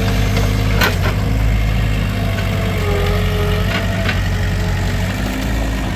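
New Holland skid steer loader's engine running steadily under load, with a wavering whine over it as the forks lower a log onto the sawmill bed. Two short knocks, about a second in and about four seconds in.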